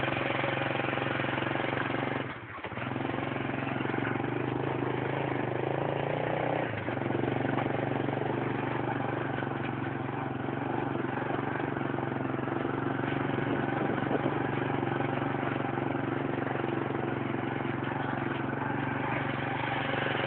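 Motorcycle engine running while the bike is ridden along a dirt track. The engine note dips briefly about two and a half seconds in and steps down in pitch around seven seconds in.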